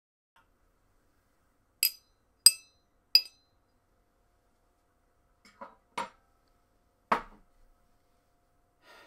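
A drinking glass tapped three times with a utensil, bright ringing clinks about two-thirds of a second apart: the taps that call a room to attention for a toast. A few duller knocks follow, a few seconds later.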